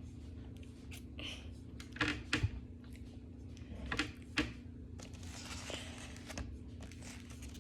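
Plastic knife spreading peanut butter on a crisp rice cake: a few short scrapes and light knocks, in two pairs about two and four seconds in, over a steady low hum.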